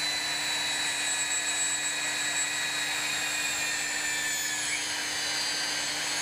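Hougen HMD 925 magnetic drill running with its power feed engaged: a steady motor whine whose high pitch sags slightly over the few seconds.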